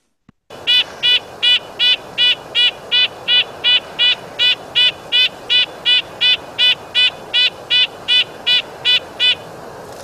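Red-breasted nuthatch giving its nasal 'yank' call over and over in a strong, steady series of about two and a half calls a second, over a steady background hiss.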